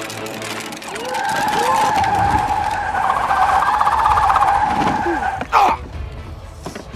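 Dubbed tire-screech skid sound effect: one long, steady squeal that swells about a second in, wavers in the middle and cuts off about five and a half seconds in. A short loud sound comes just after.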